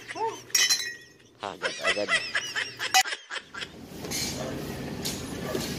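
Formwork panels being knocked loose from set concrete: several sharp knocks, the loudest about three seconds in, then a rough scraping and clattering. Voices carry over the first half.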